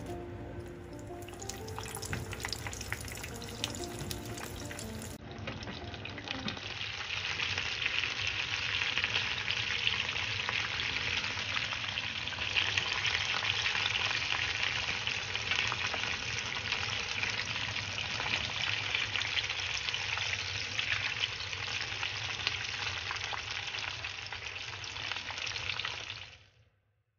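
Chicken wings deep-frying in a pan of hot oil for their second fry: a dense, steady crackling sizzle that cuts off suddenly near the end. Background music plays over the first few seconds and fades out.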